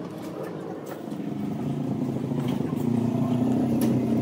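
An engine running, growing louder from about a second in and holding steady, with a few faint clicks.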